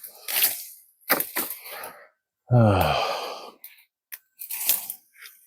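Dry branches and leaves crackling and snapping in several short bursts, with a brief vocal grunt about halfway through.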